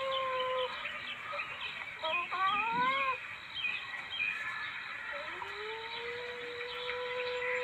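Recorded civet calls used as a hunting lure. A long, steady, whining note ends less than a second in, a short rising call comes about two to three seconds in, and at about five seconds another note swoops upward and then holds steady. Faint high chirping runs behind the calls.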